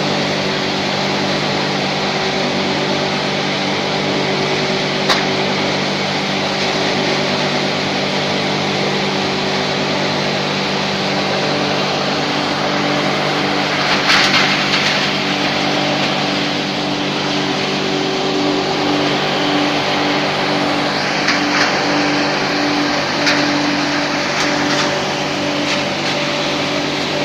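22 kW wood chip hammer mill running steadily, its motor and blower giving a constant hum. Louder bursts of crushing come about halfway through and again near the end as branches are fed in.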